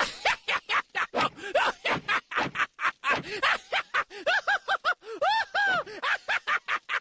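Cartoon character voices: a rapid run of vocal syllables with arching, rising-and-falling pitch, at speech loudness but not picked up as words.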